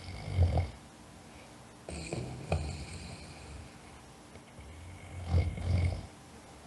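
A sleeping person snoring: three rough, low snoring breaths, the last one the loudest.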